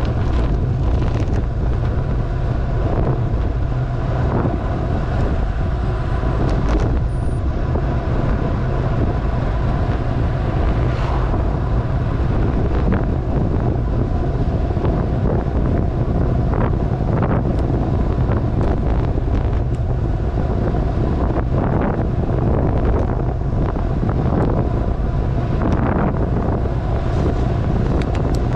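Wind rushing over the microphone during a fast downhill bicycle ride on a road. It is a steady, loud, low rush with a few short knocks scattered through it.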